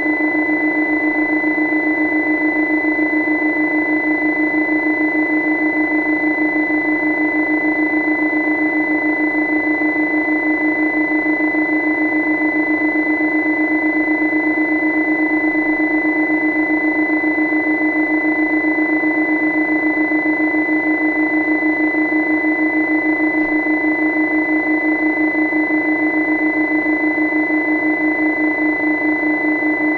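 A steady, unchanging hum with a fixed high-pitched whine above it, all at one level.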